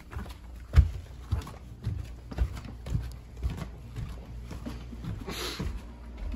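Footsteps going up carpeted stairs, about two steps a second, with one heavier footfall about a second in. A short rustle near the end.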